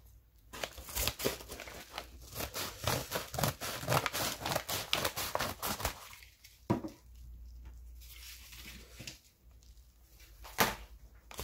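Scissors cutting open a kraft paper mailer, the paper crinkling and crackling as it is handled and cut. The crinkling is busy for the first six seconds or so, then quieter, with a sharp click about two-thirds of the way through and another near the end.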